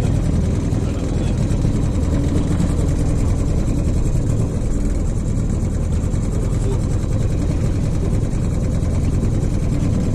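Small outboard motor running steadily at low speed, pushing an aluminium dinghy along.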